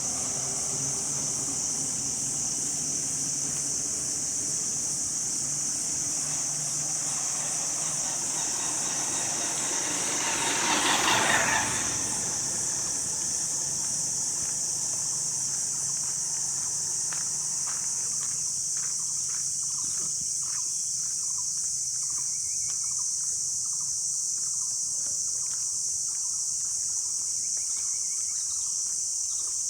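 Steady high-pitched insect buzzing over a low vehicle hum. About eleven seconds in, a brief louder whoosh swells and fades, like a vehicle passing.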